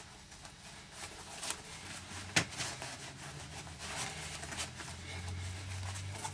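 Hands pressing a leather shoe's heated, freshly glued insole down onto the sole: faint rustling and handling noises, with one sharp click about two and a half seconds in.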